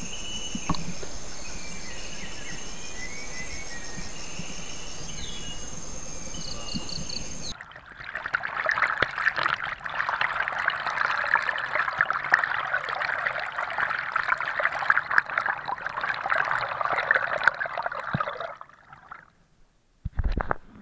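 Forest ambience with a steady high-pitched insect drone and scattered chirps, then about seven seconds in, falling water rushing and splashing right at the microphone of a waterproof action camera at a waterfall, which fades out after about eleven seconds. A short knock comes near the end.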